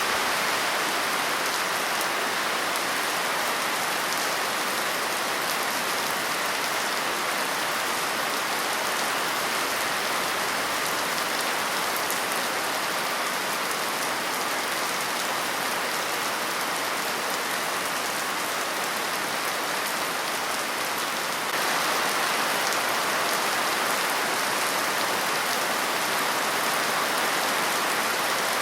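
Steady rain falling, an even hiss of many drops with no thunder. It gets slightly louder about three-quarters of the way through.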